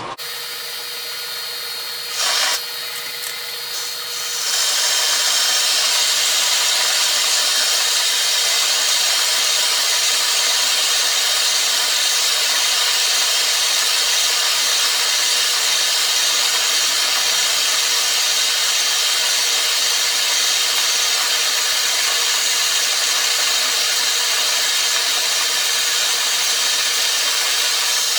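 Metal lathe running, then a little over four seconds in a boring cut starts inside a steel bar: a steady, loud scraping of the tool through the steel that carries on to the end. It is a roughing pass taking about a hundred thousandths out of the bore. A short sharp sound comes about two seconds in, before the cut.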